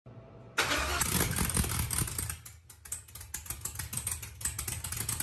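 Cammed 4.8L LS V8 in a burnout truck running on open header stacks. It comes in suddenly about half a second in as a loud rumble with a rapid, uneven rattle of exhaust pulses.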